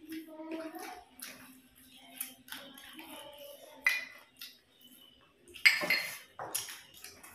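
Light clinks and taps of plates and a small glass bowl as two people eat rice with their hands, mixing and scooping on their plates. The loudest clatter comes about three-quarters of the way through, as the bowl of dal is handled.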